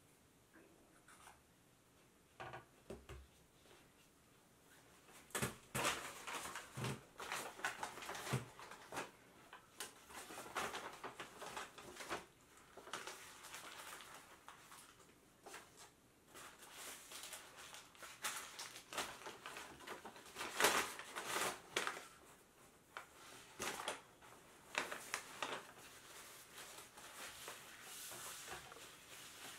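Paper fast-food bags and wrappers crinkling and rustling as they are handled and folded, in irregular bursts that start about five seconds in.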